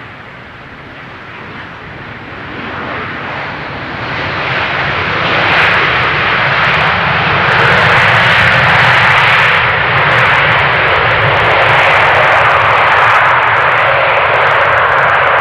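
Boeing 787-9 Dreamliner's jet engines on its landing rollout just after touchdown. The noise builds over the first few seconds, then holds loud and steady.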